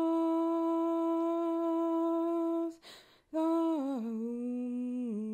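A lone voice humming without accompaniment. It holds one long, steady note, breaks off for a breath about three seconds in, then comes back on a note that slides down and is held.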